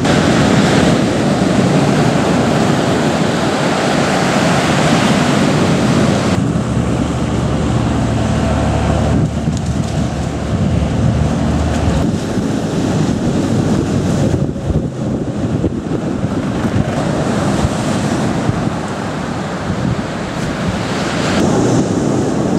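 Wind buffeting the microphone over surf breaking on a shingle beach, a steady rushing noise that changes abruptly several times.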